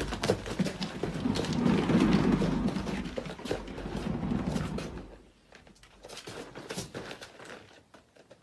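A cat running, its paws patting rapidly over a low rumble; about five seconds in this drops away to a few faint taps.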